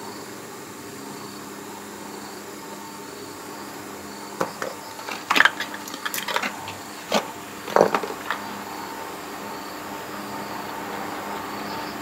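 A string of sharp plastic knocks and clatters, about a dozen over four seconds, as PVC pipe fittings are handled and set down on a concrete floor, over a steady background noise.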